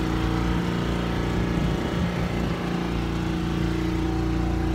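Small sailboat outboard motor running steadily, pushing the trimaran along under power.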